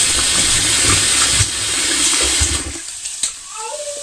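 Kitchen tap running into a metal pot of diced raw potatoes in a stainless steel sink, water splashing as a hand swishes the potatoes to rinse them; the water stops a little under three seconds in.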